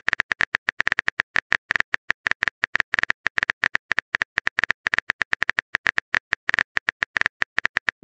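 Texting-app typing sound effect: rapid, uneven keyboard clicks at roughly ten a second, each a short sharp tap.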